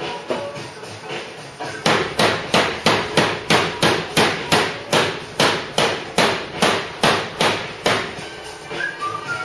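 A hammer striking sheet-steel bodywork in a steady, rapid run of blows, about three to four a second, beginning about two seconds in and stopping near the end. Radio music plays faintly before and after the blows.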